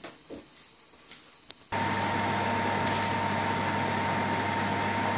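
Faint small clicks, then, cutting in suddenly a little under two seconds in, a pot of eggs at a rolling boil on a gas hob: a steady rush of bubbling with a low hum under it.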